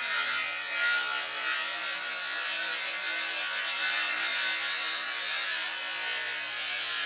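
Steady rasping noise of a power tool working wood, with a faint motor hum under it; it stops abruptly near the end.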